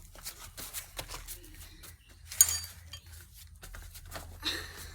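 Handling and rustling noises with small clicks, as the camera is picked up and moved closer, and one sharp metallic clink with a brief ring about two and a half seconds in.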